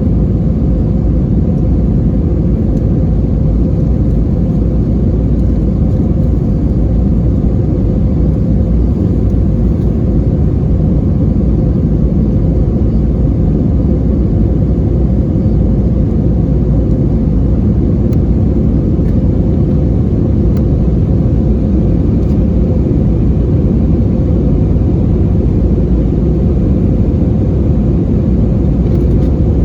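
Steady, loud rumble of an Airbus A320-232's IAE V2500 turbofan engines and airflow heard inside the cabin, with a constant hum under it.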